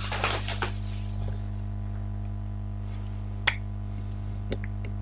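A steady low electrical hum, with a brief rustle at the start and a few light clicks and taps of a pen being handled over paper; the sharpest click comes about three and a half seconds in.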